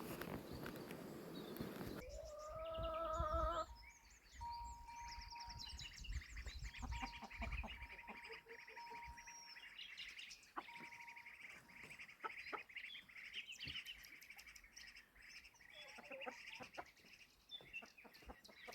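Birds chirping and calling, many short high chirps, with a wavering, pitched animal call about two seconds in.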